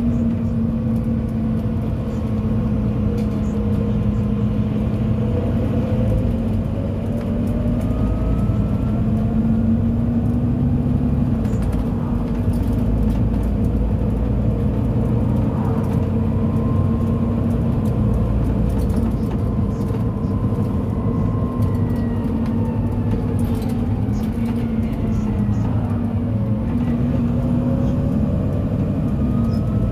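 Volvo B9TL double-decker bus heard from a passenger seat, its diesel engine and driveline running steadily at road speed. The engine note dips and climbs again a few times, with a thin whine rising alongside it as the bus pulls through the gears.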